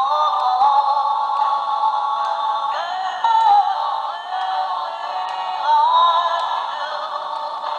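Animated plush toy singing a song through its small built-in speaker: a thin electronic voice over music, with no bass.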